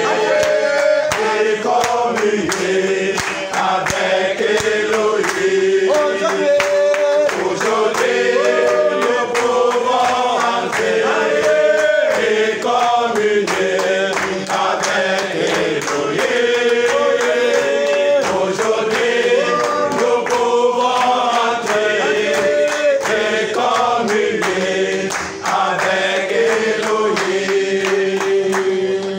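A congregation singing a worship song together without instruments, with steady rhythmic hand clapping along to the beat.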